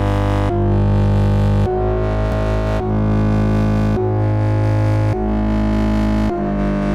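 Instrumental beat: sustained chords over a heavy bass line, the chord changing about once a second.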